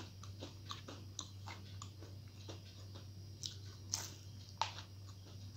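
A person biting and chewing food, eaten by hand, with many small wet mouth clicks and a couple of sharper clicks about four and four and a half seconds in. A steady low hum runs underneath.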